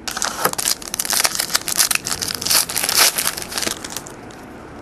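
Foil trading-card pack wrapper crinkling and tearing as it is handled and opened, a dense irregular crackle that stops about four seconds in.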